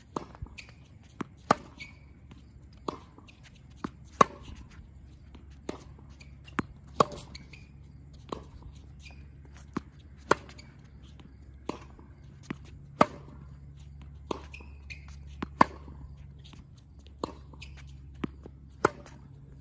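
Tennis ball struck with a racket on forehand groundstrokes: a sharp pop about every two and a half to three seconds, with softer knocks of the ball bouncing on the hard court in between.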